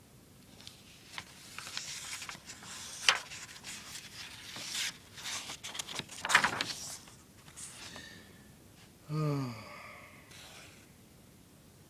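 Paperback book being handled and opened, its pages turned: a run of papery rustles and sharp flicks for several seconds, then a brief falling vocal sound, a sigh or hum, about nine seconds in.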